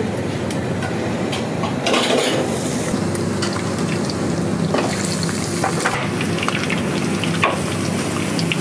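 Commercial kitchen cooking: food sizzling in a hot pan, with scattered clinks of utensils and pans over a steady hum.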